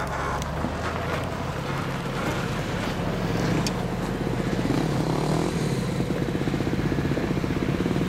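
4x4 truck engine running at low revs. About halfway through it settles into a fast, even pulsing, with a couple of sharp clicks earlier on.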